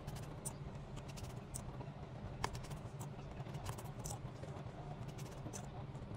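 Faint, scattered clicks and taps of an iPhone's glass and metal frame being handled and its display lifted open, about one every second, over a steady low hum.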